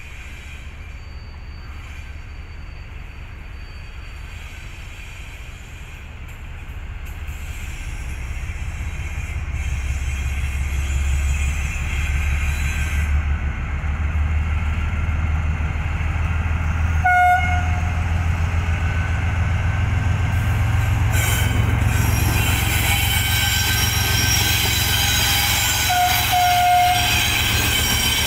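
KTM Class 26 diesel-electric locomotive approaching and passing at the head of a freight train, its engine drone growing steadily louder. It sounds its horn twice: a brief toot about two-thirds of the way in and a slightly longer blast near the end.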